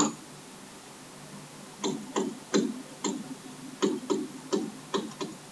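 Stylus tapping and clicking on a tablet screen while handwriting. After a quiet start, there is an irregular string of short ticks, about four a second, beginning a little under two seconds in.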